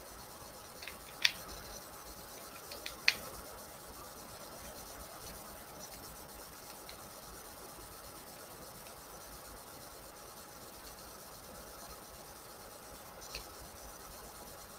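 Plastic tripod phone-holder clamp being handled: two sharp clicks, about one and three seconds in, and a few softer ticks, over a faint steady hiss.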